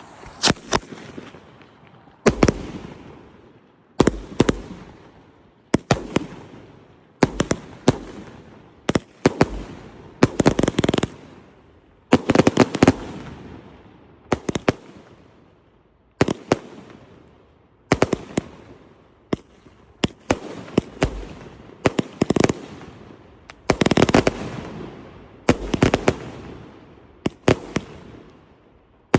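Emerald Dragon 36-shot firework cake firing shot after shot, a sharp bang about every one to two seconds, often in quick pairs, each followed by a fading crackle.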